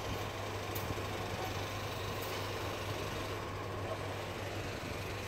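Electric table fan running: a steady low motor hum under an even whir of moving air, with a few faint ticks.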